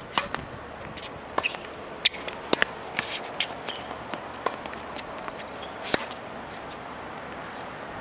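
Tennis rally on an outdoor hard court: the serve is struck just after the start, followed by sharp racket hits and ball bounces at uneven intervals, with sneakers scuffing on the court between them.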